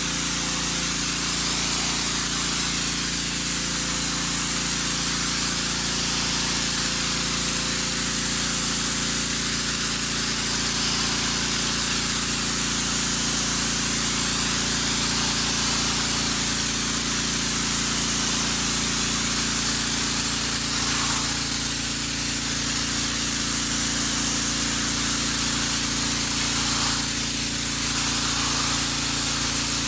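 Pressure washer spraying, a steady loud hiss with a steady low hum underneath.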